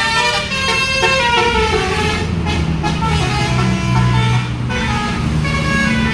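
Bus telolet horn playing a tune of changing notes, several a second, over the bus's engine running.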